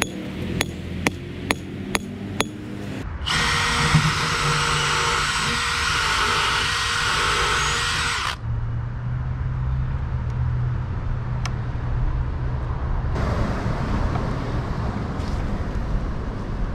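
Hammer driving a metal stake into the ground: sharp ringing metal blows about twice a second for the first three seconds. Then a loud steady whirring noise runs for about five seconds, followed by a lower steady hum and more noise near the end.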